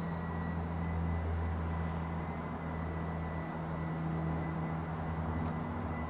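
Steady low machine hum with a few steady tones in it, and one faint click about five and a half seconds in.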